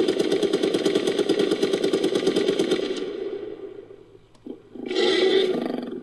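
Made-up creature sound effect mixed from a jaguar recording and other animal sounds: a long growl of fast, rattling pulses that fades away over about three seconds, then a loud short roar starts near the end.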